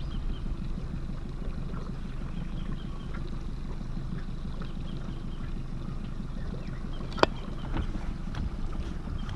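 Wind buffeting the microphone aboard a small boat, a steady low rumble, with one sharp knock about seven seconds in.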